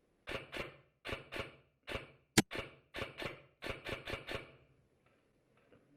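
Airsoft rifle (Systema PTW) firing single shots in quick pairs and short strings, about a dozen in all, each with a short echo. One much louder sharp crack about halfway through stands out.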